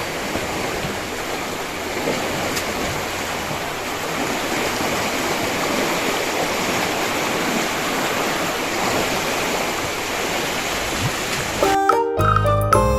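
Floodwater rushing steadily through a river sluice gate. Near the end it cuts abruptly to background music.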